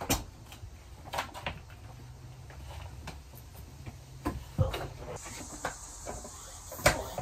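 Irregular knocks and clunks of things being handled, about eight in all, with a faint hiss from about five seconds in.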